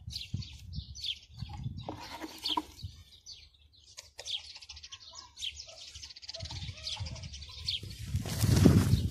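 Small birds chirping, a string of short falling calls repeating throughout, over the scraping and knocking of a trowel working mud and stone on a wall top, with one sharp knock about four seconds in. A louder rustling rush comes near the end.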